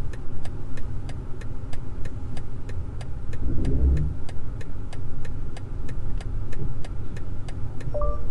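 Cabin of a BMW iX1 electric SUV creeping under automatic parking control: a low rumble with steady rapid ticking, about three ticks a second. Near the end a short chime sounds as the parking manoeuvre completes.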